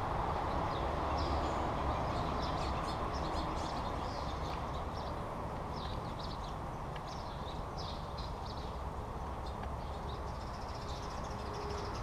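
Small birds chirping, many short high calls scattered throughout, over a steady low background rumble.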